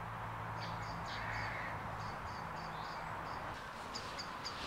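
Birds calling across an open field: a bird repeats short high-pitched notes in quick runs of several a second, over a low steady hum that fades about halfway through.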